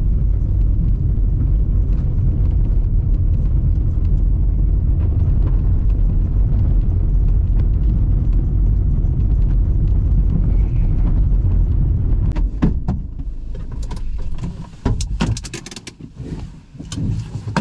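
Steady low rumble of a motor vehicle driving, which drops away about twelve and a half seconds in. A run of sharp clicks and knocks follows.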